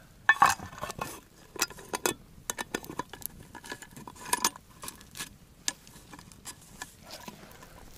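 Metal clinks and knocks of an army mess tin's lid being fitted onto the pot, an irregular series of sharp clinks, the loudest about half a second in.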